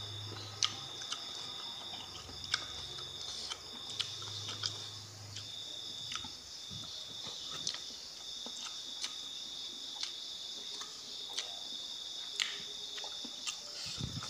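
Crickets chirring steadily and high-pitched in the background, with scattered sharp clicks and smacks of chewing as a man eats with his hands. A low hum stops about five seconds in.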